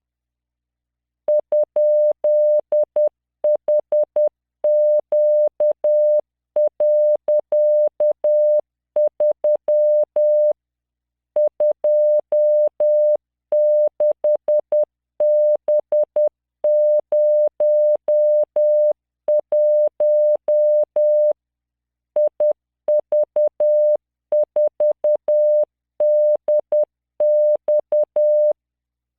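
Morse code practice tone from training software: a single 600 Hz tone keyed on and off at 10 words per minute, sending random five-character groups separated by short pauses.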